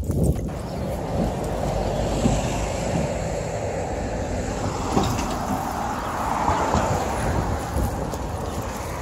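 Road traffic on a street, with a car passing by about halfway through, over wind rumbling on the microphone.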